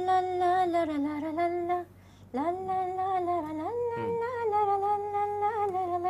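A person humming a tune unaccompanied, in two long phrases of held notes with a short break about two seconds in.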